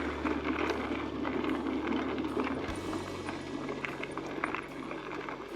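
Hardtail mountain e-bike rolling along a gravel track: steady tyre noise with crunches and rattles of loose stones and the bike.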